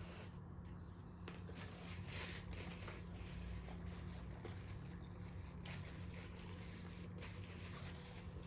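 Soft rustles and small crinkles of someone handling fast food and its paper wrapping, faint over a steady low hum.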